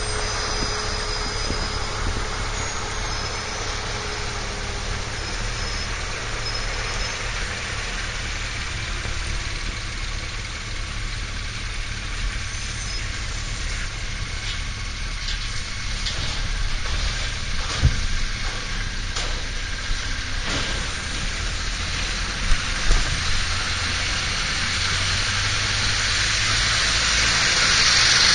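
Motorcycle running on the road with steady engine rumble and wind and road noise on the microphone, a few short knocks in the second half, and the hiss swelling near the end.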